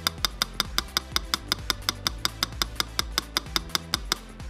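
A small hammer tapping lightly and quickly on a moped carburettor, about five taps a second, to drive a fuel tube into its seat in the body. The tapping stops shortly before the end.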